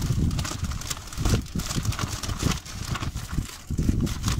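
Wind buffeting the microphone in uneven gusts, with plastic packaging crinkling and rustling as a mailer bag is pulled open.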